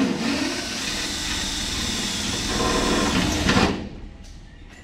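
Cordless drill running steadily against an aluminium race-car deck panel for about three and a half seconds, then stopping suddenly.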